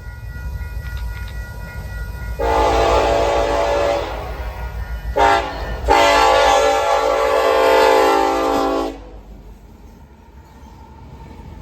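First-generation Nathan K5LLA locomotive horn blowing over a freight locomotive's low engine rumble: a long blast, a brief one, then a longer held blast that stops about three-quarters of the way through.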